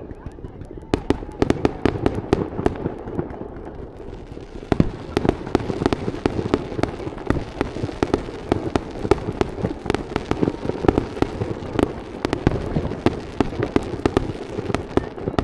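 Fireworks display: a steady barrage of bangs and crackling bursts, thickening into a dense, continuous crackle about five seconds in.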